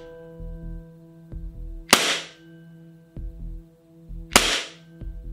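CO2-powered gas-blowback airsoft Glock 17 (Umarex / Elite Force, built by VFC) firing two single shots about two and a half seconds apart, each a sharp crack with a short noisy tail.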